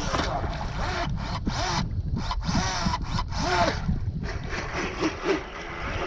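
RC boat motor revving in quick short throttle bursts, its pitch sweeping up and down again and again, with brief pauses about two and four seconds in.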